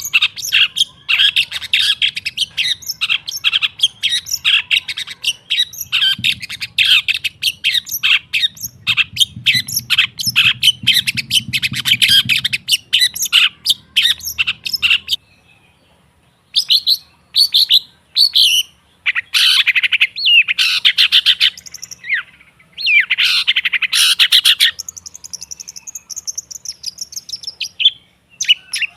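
Long-tailed shrike (cendet) singing a fast, chattering run of short notes. The song breaks off about halfway, returns in separate bursts, and near the end holds a high whistled note that dips slightly.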